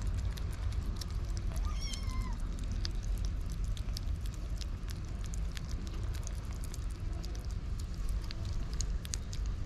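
Kittens eating wet cat food close up: many small chewing and smacking clicks, with one short high kitten meow about two seconds in, over a steady low rumble.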